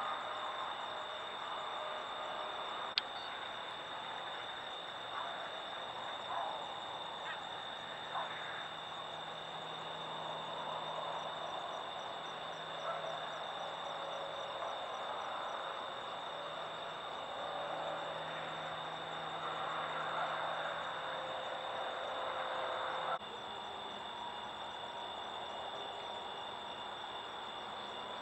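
Night chorus of crickets and other insects: a steady high trill with a faster pulsing at higher pitch, over a continuous hiss of calling. A single sharp click comes about three seconds in, and the hiss drops abruptly about 23 seconds in.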